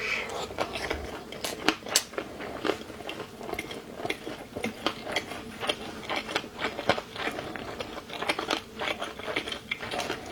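A person biting and chewing a rolled noodle-sheet wrap close to the microphone, with many small crisp crunches from the dried radish inside.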